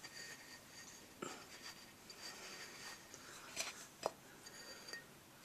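Faint scratching and rubbing with a few light taps, about a second in and twice more near four seconds in.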